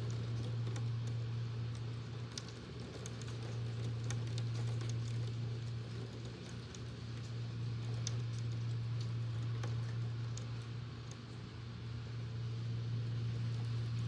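Electric fan running with a steady low hum, under rain pattering, heard as many scattered sharp ticks of drops.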